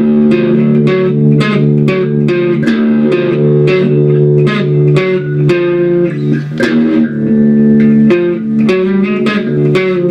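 Guitar strumming chords in a steady rhythm, about three strokes a second, with the chords changing as it goes: an instrumental stretch of a rock song demo.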